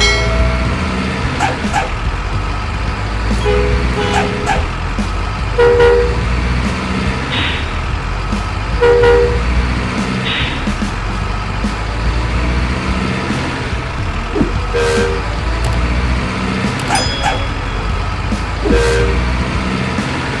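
A truck engine runs steadily with a low rumble, broken by short two-tone horn toots about six times and two brief hisses.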